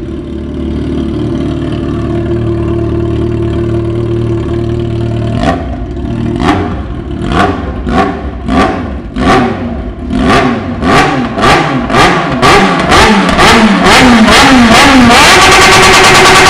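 Yamaha XJ6 motorcycle's inline-four engine with a 4-into-1 exhaust, running loud. It idles steadily for about five seconds, then the throttle is blipped in quicker and quicker succession. In the last few seconds it is held at high revs.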